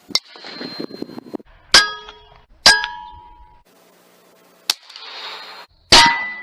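Evol .30-calibre air rifle firing: five sharp cracks spread over a few seconds, several of them followed by a short metallic ring.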